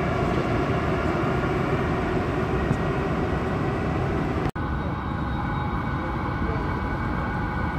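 Metro train rumbling in the tunnel beside the platform: a steady low rumble with faint whining tones. It breaks off for an instant about four and a half seconds in, and the steady rumble then resumes.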